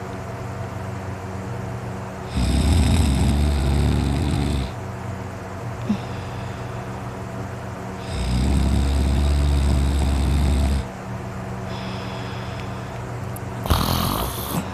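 A man sleeping on his side, snoring loudly: two long snores about six seconds apart, each lasting over two seconds, then a short, sharp noise near the end.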